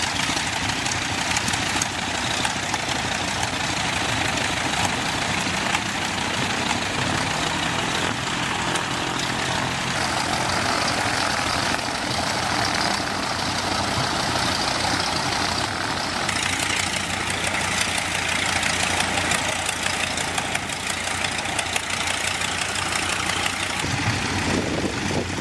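Vintage propeller-aircraft engines idling steadily on the ground, among them the Curtiss JN-4H Jenny biplane's, its propeller turning. A low, even engine note stands out for a few seconds about a third of the way through.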